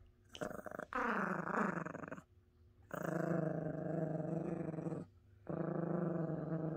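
Yorkshire Terrier play-growling with a plush toy in her mouth: a short growl, then three long, steady growls with short breaks between them.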